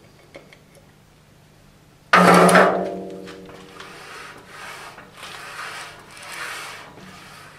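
A sudden metallic clank that rings briefly, then the freshly oiled saddle of a 1940 Hercus lathe being slid back and forth along the bed ways by hand, a rubbing swish repeating roughly once a second.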